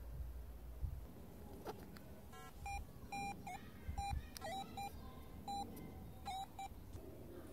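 The Air Metal Detector's smartphone app sounds its target tone through the phone's speaker as the search coil passes over a target, likely a coin. It is a run of short beeps, all at one mid pitch, in quick groups beginning about two seconds in.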